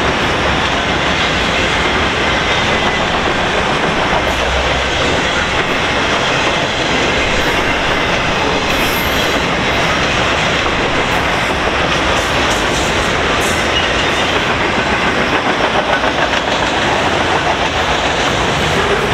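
Freight train of autorack cars rolling past: a loud, steady rumble of steel wheels running on the rails.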